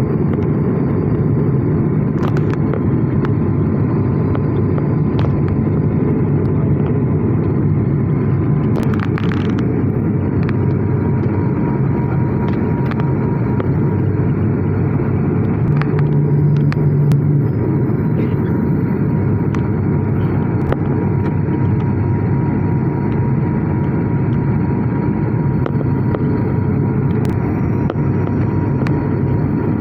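Steady drone of a Wings Air ATR 72 turboprop airliner heard from inside the cabin on approach, with a faint steady whine over it and a few light clicks.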